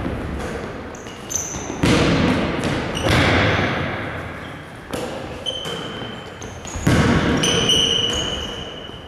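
Balls being thrown against the wall and backboard and dropping onto the floor of a sports hall: four heavy thuds about two seconds apart, each followed by the hall's long echo.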